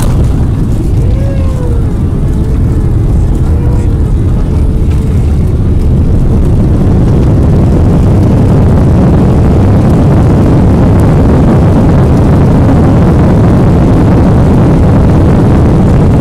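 Cabin noise of a Boeing 767 airliner on its landing rollout: a loud, steady rumble of jet engines, airflow and runway that grows louder about six seconds in as the aircraft slows with its spoilers raised.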